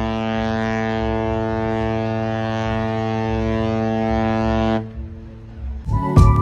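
A cruise ship's horn sounding one long, steady blast that cuts off about five seconds in. Music starts just before the end.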